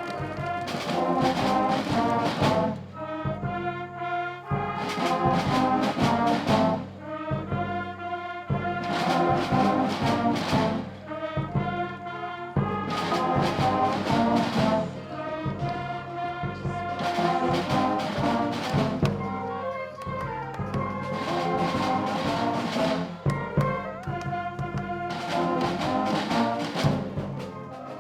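Brass band music with drums: trumpets and trombones playing over regular drum strokes, fading out at the very end.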